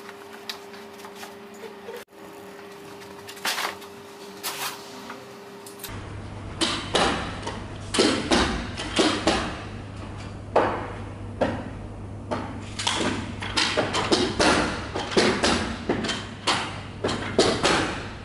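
Repeated sharp thumps, about one or two a second, from a fitter working a carpet-fitting tool into freshly laid carpet. They start a few seconds in, after a stretch of low steady hum with a few scattered knocks.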